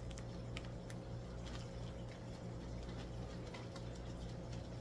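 Steady low hum of room tone in a shop lined with running aquariums, with a thin steady tone above it. Scattered faint clicks and taps come from handling near the camera.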